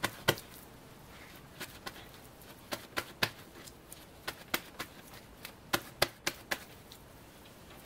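Paper towel crinkling and dabbing against raw beef tenderloin steaks as they are patted dry by hand: a scattering of short, irregular rustles and taps.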